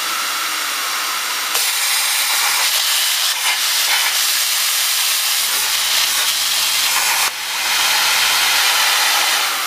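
CNC plasma cutting torch cutting steel sheet: a loud, steady hiss of the plasma arc and its air jet. A sharp click about a second and a half in is followed by a louder hiss, and the sound drops out briefly about seven seconds in before it picks up again.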